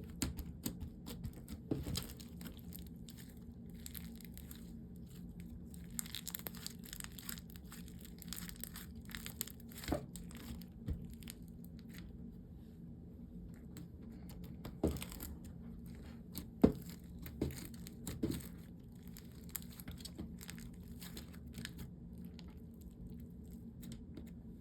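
Sticky blue slime with crunchy add-ins being stretched and squished by hand, crackling and crinkling, with a few louder sharp clicks about ten, fifteen and seventeen seconds in.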